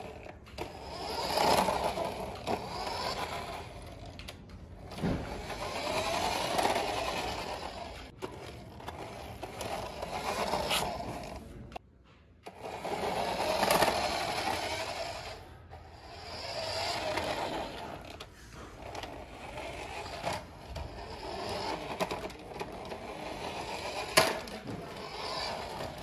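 Small electric motor of a toy remote-control car whirring as its wheels roll over rough concrete, swelling and fading every few seconds as it is driven back and forth, with a brief stop about halfway through.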